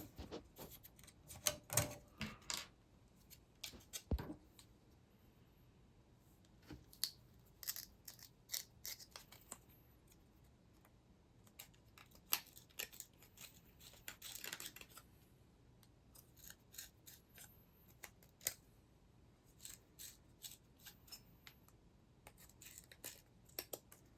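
Quiet, scattered clicks and short scrapes of a hand body reamer being twisted through a thin Lexan visor to cut a screw hole, with a longer scrape about halfway through.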